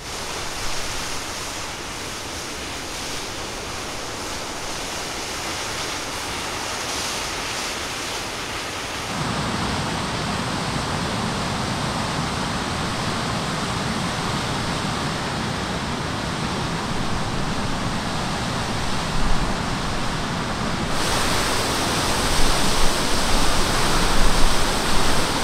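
Steady rush of a waterfall pouring into a lake, a constant white-noise roar of falling water. It starts softer and thinner, grows fuller and louder about a third of the way in, and changes again near the end, with a few brief louder peaks.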